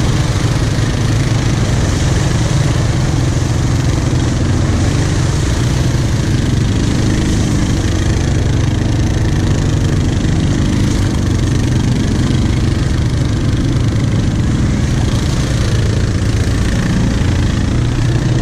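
Quad (ATV) engine running at low speed and light throttle while the quad is driven through mud and up a dirt track. The engine's pitch rises and falls a little in the middle and near the end.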